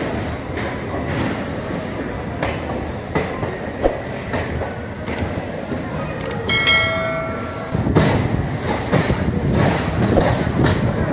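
Indian Railways train running on the track: a steady rumble with repeated clicks of the wheels, and a high wheel squeal a little before the middle. A brief pitched tone sounds about six seconds in, and the running grows louder about two seconds later.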